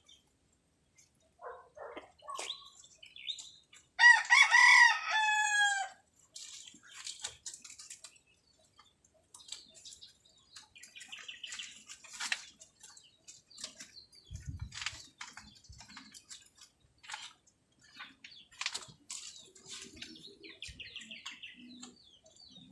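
A rooster crows once, about four seconds in, a loud call of about two seconds that drops in pitch at the end. Faint scattered clicks and rustles follow.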